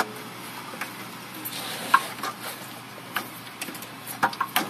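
Scattered clicks and knocks as an alternator is worked by hand around the pipes and brackets under a car, with a cluster of them near the end over a low steady hum.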